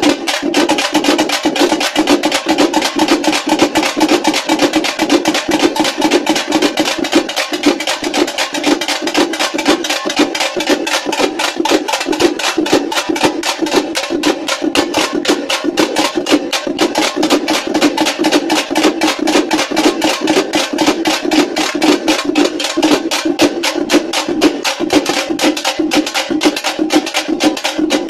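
A group of thappeta (dappu) frame drums beaten together with thin sticks in a fast, unbroken rhythm of dense strokes.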